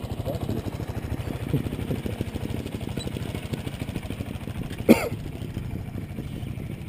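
Two-stroke single-cylinder engine of a Gas Gas TXT300 Raga trials motorcycle idling steadily with an even, rapid putter. A brief sharp noise stands out about five seconds in.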